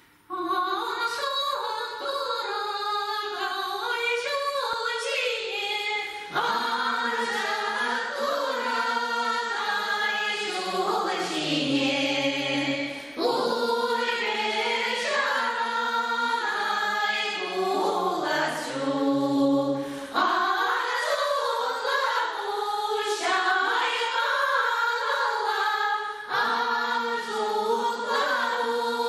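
A women's folk choir singing a traditional Chuvash guest song together in long phrases of about seven seconds, with brief breaths between them.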